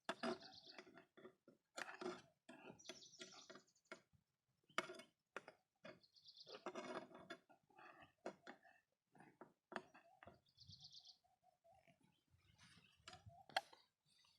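Faint, scattered scraping and clicking of a knife cutting a Dutch baby pancake in its pan, in short irregular strokes.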